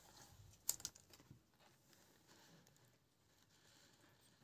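Near silence, with a sharp click a little under a second in and a few faint taps and rustles just after it.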